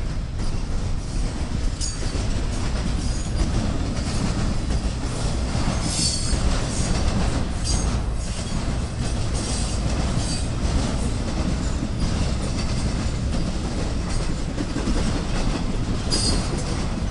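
Freight train cars rolling past: a steady low rumble with wheel clatter over the rail joints, and short high wheel squeals about six seconds in and again near the end.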